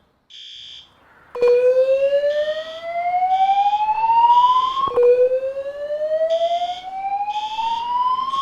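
Voice-evacuation fire alarm system sounding its slow-whoop tone between spoken messages: two long rising sweeps, each climbing steadily for about three and a half seconds then dropping back, the first starting about a second and a half in. A short high beep pulses about once a second throughout.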